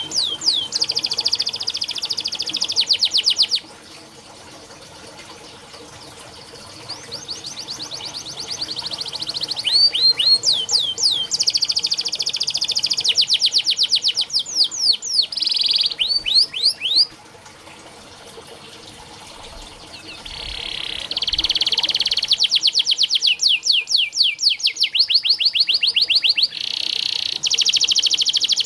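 Domestic canary singing long rolling trills of rapid, repeated high notes, in three phrases broken by short pauses.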